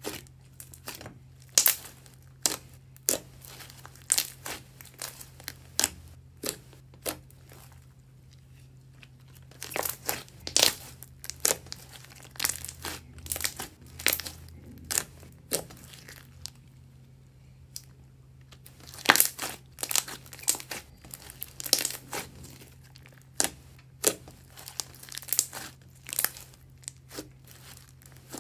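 Homemade slime being squeezed and worked by hand, giving clusters of sharp crackles and pops with two short pauses between handlings, over a steady low hum.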